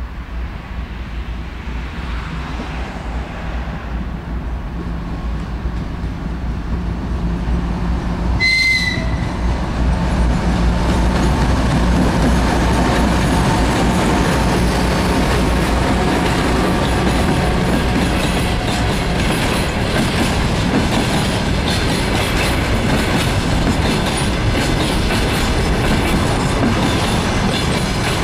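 Diesel locomotive hauling an intermodal container train on the broad-gauge LHS line, approaching and passing close by. The engine's low drone grows louder for about ten seconds, a short horn blast sounds about eight seconds in, and then the loaded container wagons roll past with a steady loud noise.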